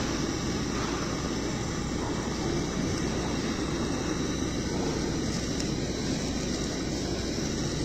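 Steady rushing noise of a fan or ventilation running, even throughout.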